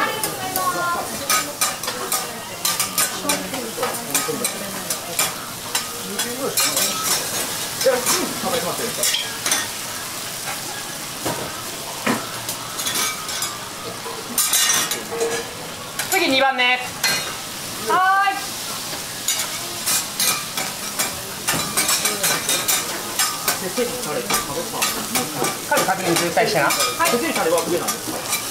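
Okonomiyaki frying on a flat iron teppan griddle: a steady sizzle with frequent clicks and scrapes of metal spatulas on the hot plate. Two short squeaky pitched sounds come a little past the middle.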